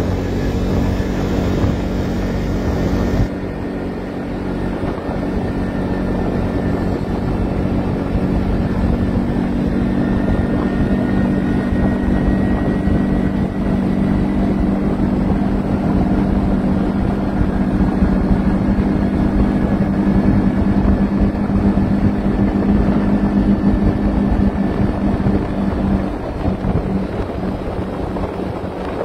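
ATV engine running steadily while riding at speed, a constant engine drone with air rushing over the microphone, strongest in the first few seconds. The engine note drops away near the end.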